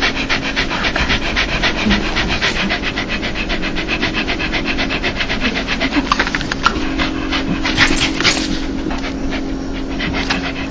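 Dog panting rapidly and evenly, a quick run of short breaths several times a second, the happy panting known as a dog's 'laugh'. A faint steady hum lies underneath.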